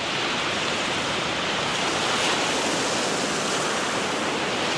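Sea waves washing onto both sides of a narrow sand spit, a steady rush of surf.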